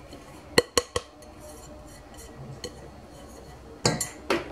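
Flour tipped from a bowl into a stainless-steel mixing bowl, with three sharp clinks as the bowls knock together about half a second to a second in, and more knocks near the end as the emptied bowl is put down.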